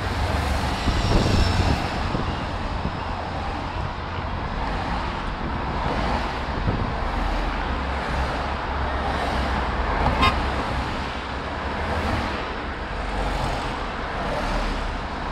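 A procession of team support cars passing close by one after another, with steady engine and tyre noise. A short horn toot sounds about ten seconds in.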